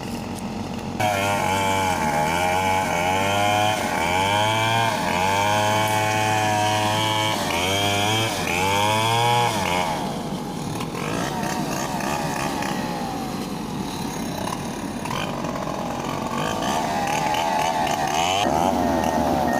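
A small engine revving up and down over and over, each rise and fall lasting a second or two, then running quieter; near the end an excavator's travel alarm starts beeping steadily.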